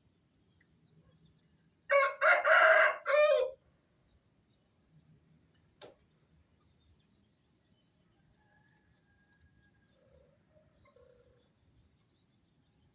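An Aseel rooster crows once, loudly, about two seconds in; the crow lasts about a second and a half. Crickets chirp steadily in a fast high-pitched pulse throughout, with a single sharp click midway.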